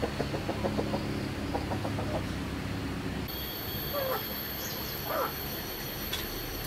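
Chickens clucking in quick short calls, then two short squawks about four and five seconds in.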